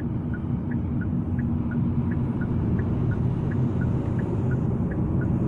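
Steady road and engine rumble inside a moving car, with the turn-signal indicator clicking evenly, about three ticks a second, alternating between two pitches.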